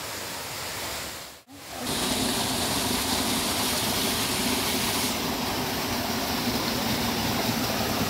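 Steady rushing of water from a waterfall running low in the dry season. The sound drops out briefly about a second and a half in, then returns louder and steady.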